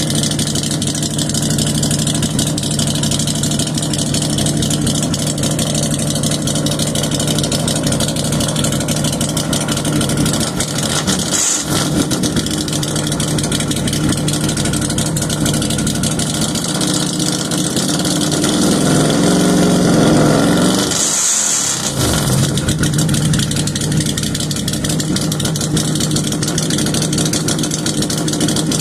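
Can-Am engine running through a new stainless exhaust with the catalytic converter removed and no mufflers fitted. It idles steadily, is blipped briefly about 11 seconds in, and is revved up and back down around 19 to 21 seconds in.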